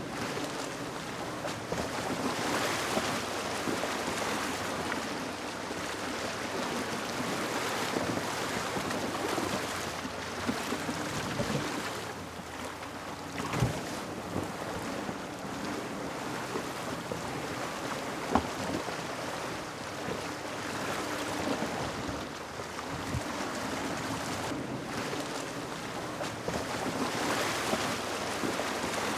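Shallow stream water rushing over rocks, with a faint steady low hum beneath and a couple of sharp knocks partway through.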